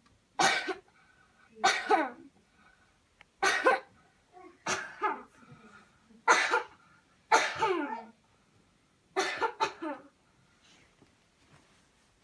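A person coughing hard and repeatedly on purpose after a deep breath, as a deliberate chest-clearing cough exercise. There are seven coughing bouts about a second and a half apart, several with a second cough right after the first.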